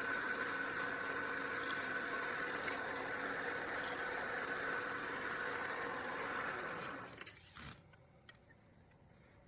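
A motor running steadily with a constant whine, then cutting off about seven seconds in, followed by a couple of short clicks.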